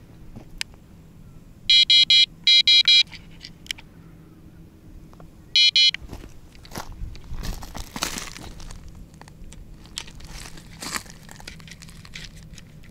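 Kaida electronic carp bite alarms beeping: four short, high beeps in quick succession about two seconds in, then a single beep a few seconds later, as the alarms are checked. Then rustling and crunching of gravel as gear is handled and a bank stick is pushed into the stony ground.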